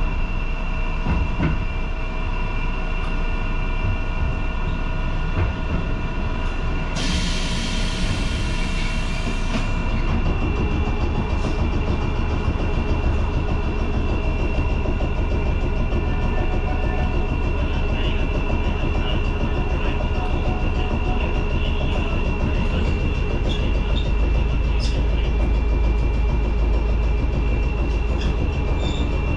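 Keifuku Randen tram running along the track, heard from the driver's cab: a steady low rumble with steady high motor tones and scattered clicks from the rails. About seven seconds in, a loud hiss lasts for a couple of seconds.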